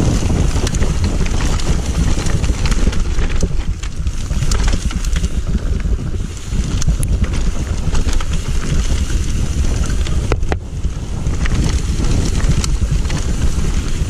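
Wind rushing over an action camera's microphone as a mountain bike rolls fast down a dirt singletrack, with tyre rumble and many small clicks and rattles from the bike over the rough ground. The noise drops briefly about ten seconds in.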